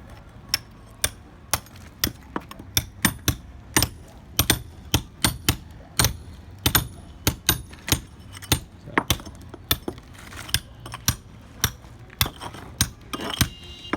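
Hammer striking a cold chisel, chipping concrete away at a crack: a steady run of sharp metallic blows, about two to three a second.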